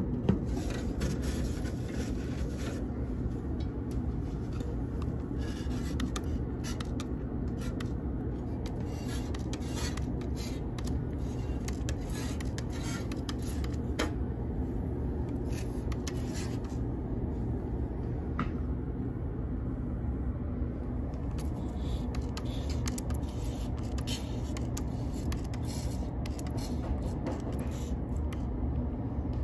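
Steady low hum of an old walk-in cooler's refrigeration equipment running, with scattered light clicks and taps throughout.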